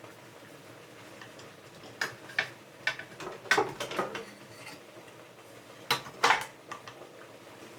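Kitchen clatter: scattered sharp clinks and knocks of dishes and utensils being handled, in two clusters, about midway and again near the end.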